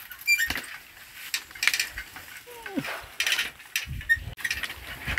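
Bicycle rattling and clicking as it is ridden over a rough dirt track, with a short falling cry about halfway through and a low rumble from about four seconds in.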